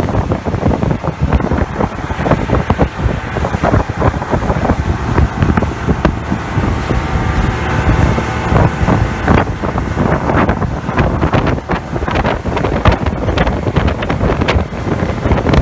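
Motorboat running at speed, its engine drone buried under heavy wind buffeting on the microphone and a continuous rush with frequent knocks, as of the hull hitting chop.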